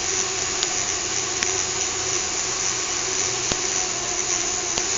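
Small fischertechnik electric motor of a monorail carriage running steadily with a whine, with a few faint clicks.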